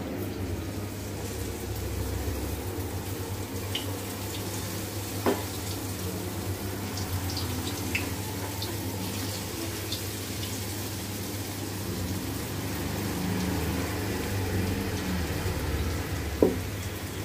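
Idli-batter bondas deep-frying in hot oil in an iron kadai: a steady sizzle with small scattered crackles. Two sharp knocks stand out, one about five seconds in and a louder one near the end.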